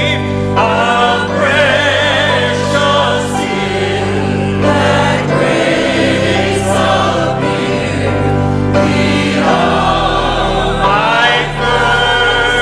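Church congregation singing a hymn together, with sustained instrumental accompaniment holding steady low notes.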